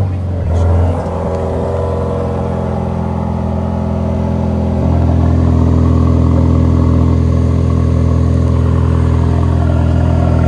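2021 Mercedes-AMG GT Black Series' twin-turbo 4.0-litre V8 heard at its exhaust tips just after firing up. There is a brief rise in revs just under a second in, then it settles into a steady idle that grows slightly louder about five seconds in.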